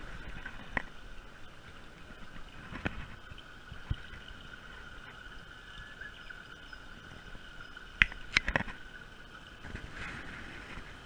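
A steady high-pitched hum runs underneath a few sharp clicks and taps, with a cluster of clicks near the end.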